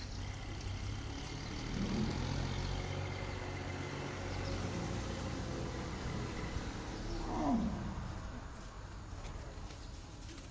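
A young elephant gives one short call about seven seconds in, falling sharply in pitch, over a steady low background hum.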